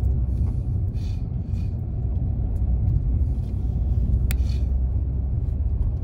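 Steady low rumble of a car driving on the road, engine and tyre noise heard from inside the cabin, with a single faint click about four seconds in.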